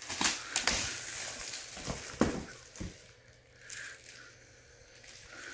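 Metallic foil gift wrap crinkling and crackling as it is handled and pulled off a present, with several sharp crackles in the first three seconds before it dies down.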